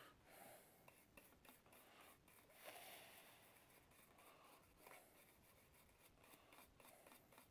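Faint, irregular brushing and scratching strokes with small clicks: a small brush scrubbing a dryer control circuit board clean.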